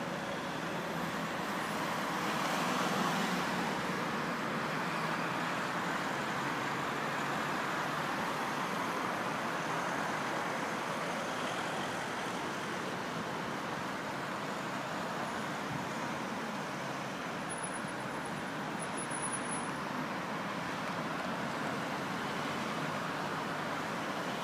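Road traffic: cars driving past on the street below, a steady rush of engines and tyres that swells briefly about three seconds in.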